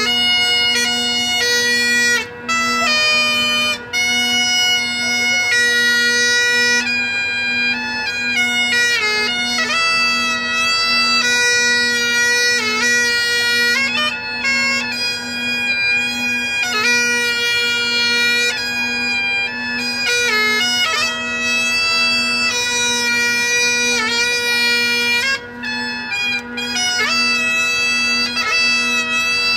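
Bagpipes playing a tune: a changing chanter melody over a steady, unbroken drone.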